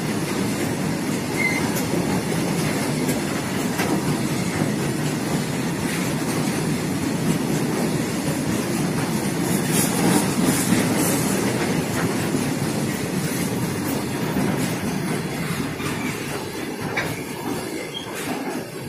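Ro-Ro freight train of flat wagons loaded with lorries rolling past: a steady rumble of steel wheels on the rails, with occasional clacks at the rail joints.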